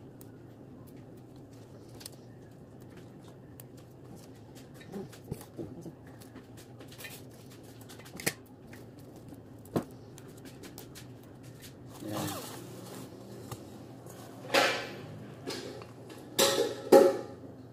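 Sweet potato leaves being plucked off their stems by hand, with small snaps and leaf rustles, then a stainless steel bowl knocked and handled, ringing briefly a few times near the end.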